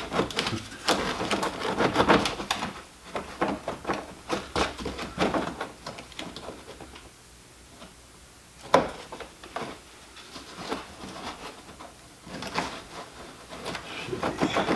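Hands working plastic under-tray and fender-liner pieces and their clips under a car's front bumper: irregular clicks, taps and rattles, with one sharp knock a little before the middle.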